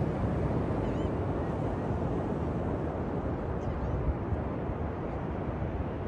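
Steady rush of ocean surf on a beach, mixed with a low wind rumble. A bird gives short faint calls about a second in and again near the middle.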